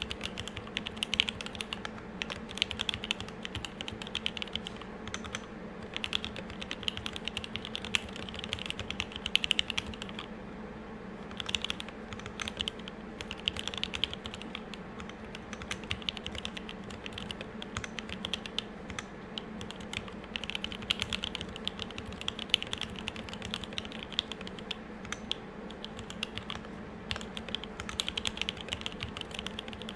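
Fast, continuous typing on an M65-A custom mechanical keyboard with a brass plate, lubed Tealios 67g linear switches and GMK keycaps, the keystrokes coming in a dense stream with a short pause about ten seconds in. A faint steady hum lies underneath.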